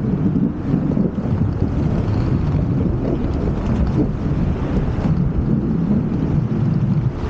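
Inline skate wheels rolling over the planks of a wooden boardwalk: a steady low rumble.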